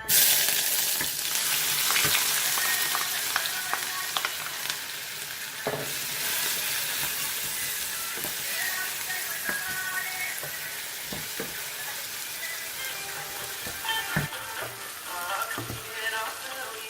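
Food dropped into hot oil in a pan, setting off a loud sizzle that starts suddenly and slowly dies down, with scattered knocks and scrapes of a spoon stirring it.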